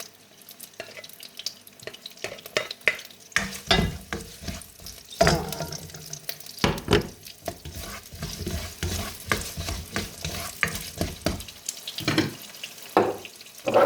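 Onions, vegetables and garlic frying in oil in a pan, sizzling, while a utensil stirs them with repeated scraping and knocking against the pan.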